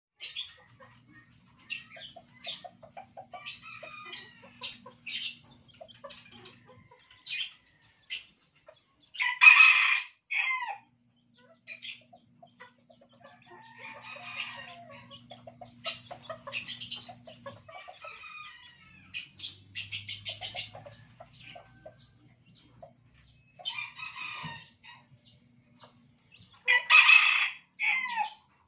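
Chabo Japanese bantam chickens clucking and chirping in short calls, with a short rooster crow twice: about nine seconds in and again near the end.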